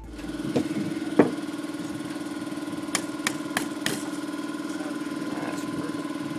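A small engine running steadily at an even pitch, with a few sharp knocks and clicks as the corn cannon's metal barrel is handled; the loudest knock comes about a second in, and a quick run of four clicks comes about halfway.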